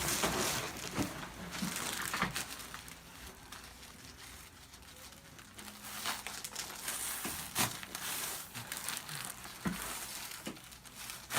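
Rustling and crinkling as a person turns over and settles onto their back on a chiropractic table, with a few short sharp clicks.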